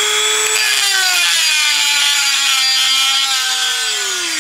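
Dremel rotary tool with a grinding stone running at a high-pitched whine while grinding into a cast-iron rib. Its pitch sags about a second in as the stone bites, rises again past the three-second mark, then falls near the end.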